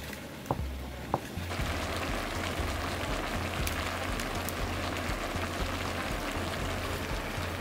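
Chopped ox meat sizzling as it fries in a large wok over a wood fire: a steady, dense sizzle that sets in about a second and a half in, after a couple of sharp clicks.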